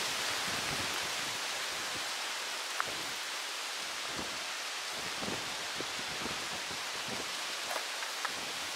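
Steady outdoor hiss of wind through the leaves of trees, with a few faint ticks scattered through it.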